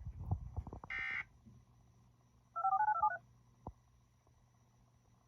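Final burst of the Emergency Alert System end-of-message data tones, a short buzzy chirp about a second in that closes the alert. Around three seconds in comes a quick string of telephone touch-tone (DTMF) beeps. A few low thumps sound in the first second.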